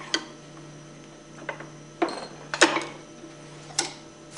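A handful of short clicks and knocks of small pump parts being handled as a new oil seal is pressed by hand onto a plunger-pump cartridge.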